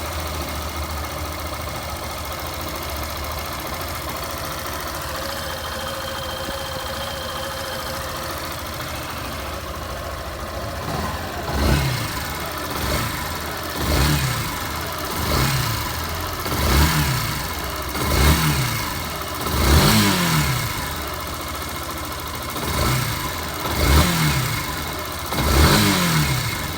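Yamaha Fazer 150's single-cylinder four-stroke engine idling steadily while warming up, then revved about ten times in quick succession from about halfway through, each rev rising and falling. It is freshly rebuilt with a new timing chain after a badly scratched piston, and it runs quietly, the earlier engine noise gone.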